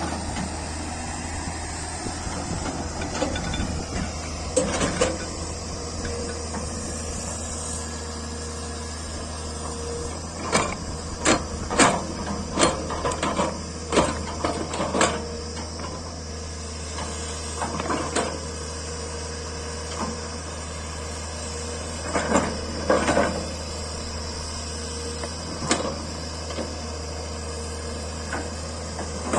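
JCB backhoe loader's diesel engine running steadily, with bursts of sharp metallic clanks and knocks coming in clusters, most thickly about a third of the way in and again past the middle.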